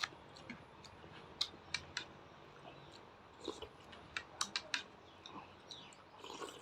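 Close-miked eating: scattered sharp, crisp clicks and crackles of chewing, in small clusters with pauses between.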